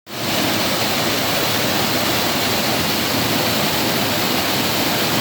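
Steady, loud rush of water, like a waterfall or fast-flowing river.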